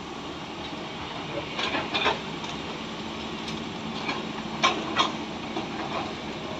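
Hydraulic excavator's diesel engine running steadily at a distance, with a few sharp knocks, a pair about two seconds in and another pair near the five-second mark.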